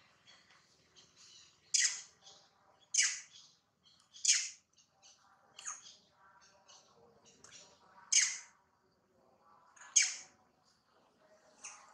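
Short, sharp, high-pitched squawking calls, about six of them one to two seconds apart, with fainter chirps in between.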